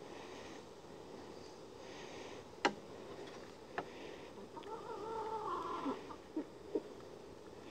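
Two sharp clicks, then an animal call about five seconds in, lasting a little over a second, followed by two short falling calls, over a faint steady background hiss.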